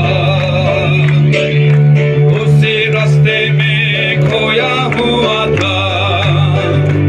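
Loud music with guitar, a held bass line and singing, playing for a line dance.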